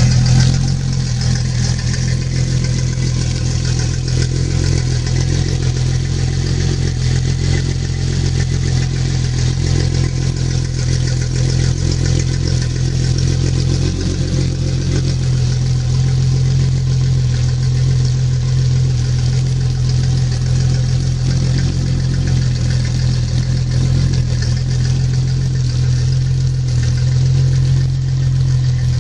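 Mercury 225 EFI four-stroke outboard motor running steadily at idle.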